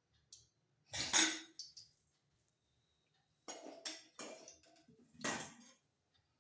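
Stainless-steel kitchen pots and utensils clattering and clinking as they are handled. There is one loud clatter about a second in, then a run of several knocks and clinks in the second half.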